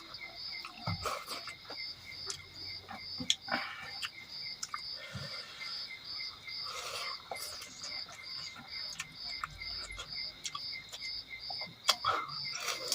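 Insects chirping in a steady, even pulse of about two to three chirps a second, with scattered sharp clicks and short bursts of eating noise over it.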